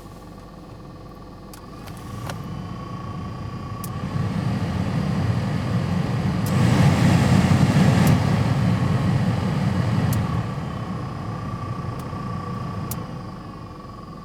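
Newly installed replacement blower motor fan in a Pontiac Vibe running: a rush of air with a steady high whine and a slight buzz. The old rattle is gone, but the buzz remains, not quiet enough for the owner, who returns the motor. The air noise grows much louder toward the middle and falls away again near the end.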